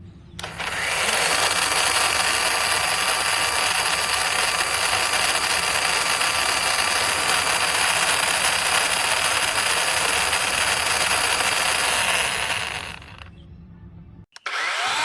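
DeWalt DCCS620B 20V cordless chainsaw running at full speed, a steady loud motor-and-chain whir for about twelve seconds. It winds down, then starts up again just before the end with a rising whine as the motor spins up.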